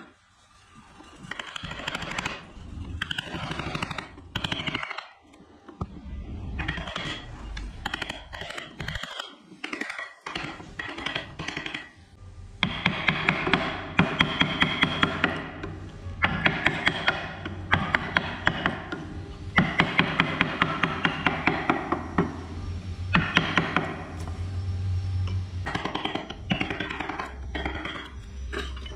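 A power tool working wood in on-off bursts of a few seconds. From about halfway in, each burst is a fast, even run of strokes.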